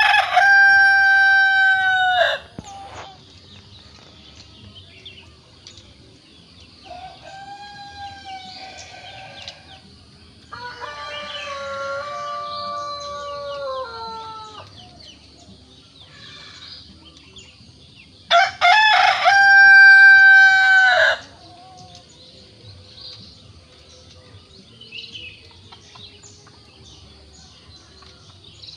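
Ayam kampung (Indonesian village chicken) rooster crowing: two loud, long crows, one at the very start and one about two-thirds of the way in, with fainter crows in between.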